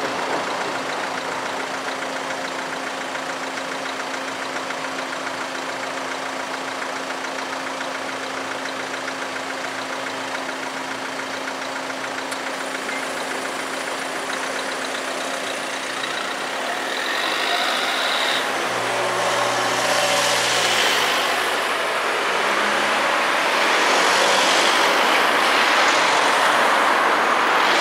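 Car engines idling in a queue at a closed level crossing, a steady hum. About two-thirds of the way in they pull away and drive over the tracks, and engine and tyre noise grows louder toward the end.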